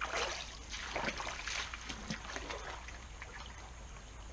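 Creek water trickling, with a cluster of short, rough, irregular noises in the first two and a half seconds.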